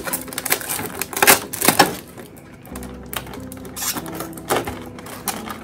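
Clear plastic packaging crinkling in the hands as it is unwrapped. It comes in irregular crackles, loudest between one and two seconds in, over background music.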